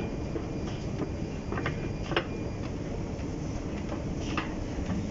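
Metro station escalator running, a steady low mechanical rumble with a few scattered sharp clicks.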